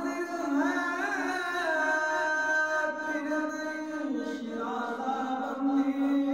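A young man's solo unaccompanied voice chanting a melodic religious recitation into a microphone, holding long notes with wavering ornamented turns and stepping down in pitch about four seconds in.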